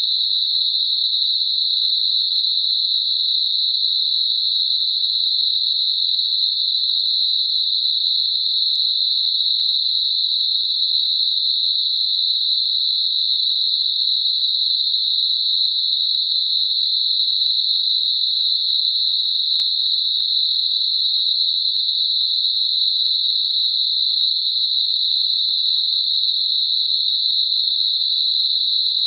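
Computer-generated 4 kHz narrow-band noise, a tinnitus masker: a steady, high-pitched hiss that never changes.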